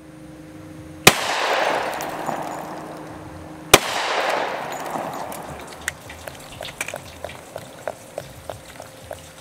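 Two 10mm gunshots about two and a half seconds apart, fired with Buffalo Bore Dangerous Game rounds into a frozen bear skull and water jugs. Each shot is followed by a spray of water and debris coming down that fades over a couple of seconds, and from about six seconds in a run of small ticks and drips follows, roughly three a second.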